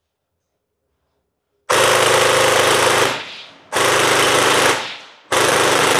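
Upgraded Sirius gel blaster firing three bursts on full auto: a rapid, buzzing stream from its electric gearbox (Warhead 480 motor, 16:1 SHS gears, M120 spring), built for about 30 rounds a second. The first burst starts nearly two seconds in and lasts about a second and a half. Two shorter bursts of about a second each follow, the last still going at the end.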